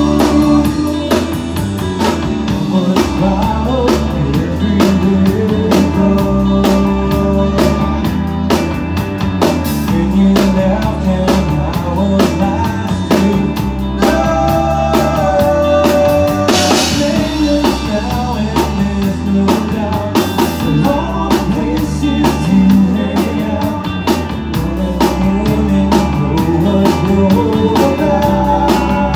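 Live rock band playing loud: drum kit, electric guitar and bass guitar, with a singer's vocals.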